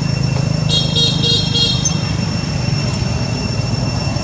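Steady low rumble of traffic noise with a faint high drone above it. About a second in come four quick high-pitched chirps.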